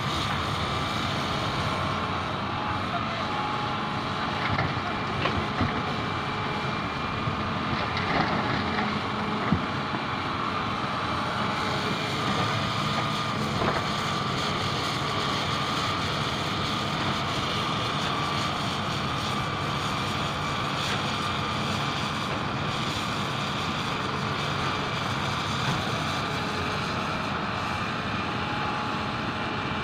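Hitachi 310 excavator's diesel engine running steadily under load as it digs and loads stone into a dump truck, with a faint steady whine over it. A few sharp knocks of rock come about eight to fourteen seconds in.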